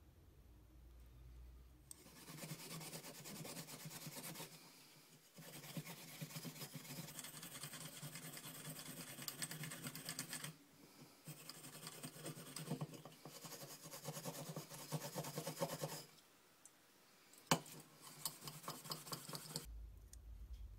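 Scratchy metal-on-metal rubbing of vintage steel vernier calipers being worked by hand, in three stretches of several seconds each. A few separate clicks follow near the end, one sharper than the rest.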